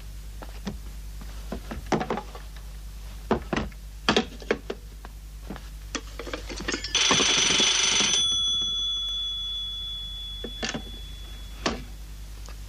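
Scattered clicks and knocks, then about seven seconds in a telephone bell rings for about a second, its tone dying away over the next few seconds.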